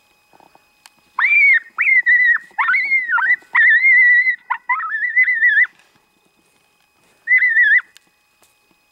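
A coyote giving a run of high-pitched, wavering yelping whines, each about half a second to a second long, from about a second in to about six seconds. One more short whine follows near the end.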